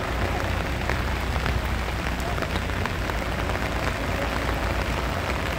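Steady rain falling on wet pavement, a dense patter of fine drops.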